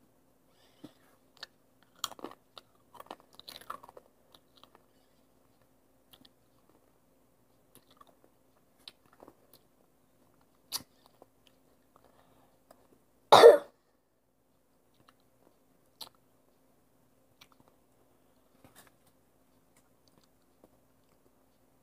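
A person chewing crunchy chips: a cluster of crunches in the first few seconds, then scattered faint crunches, and one loud cough about halfway through.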